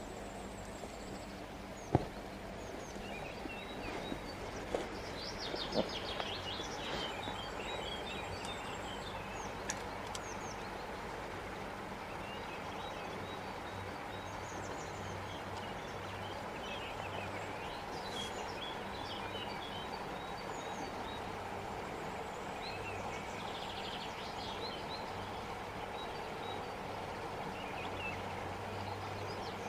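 Outdoor river ambience: a steady rush of flowing stream water with songbirds chirping and trilling on and off over it. A couple of soft knocks in the first few seconds.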